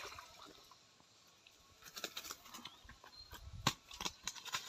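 A splash as a small hooked fish is pulled up out of a weedy pond, dying away within the first moment. Then irregular rustling and crackling in the bankside plants, with a sharp knock about three and a half seconds in.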